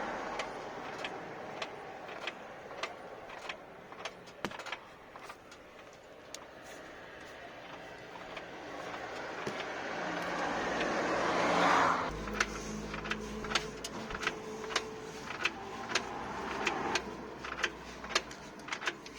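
Repeated sharp knocks from the drivetrain of a 2015 Nissan Tiida C13 as the car is rocked back and forth in gear, a knock the owner traces to either a CV joint or the gearbox. In the second half they come about twice a second over a low hum. Earlier, a rushing noise swells and cuts off abruptly.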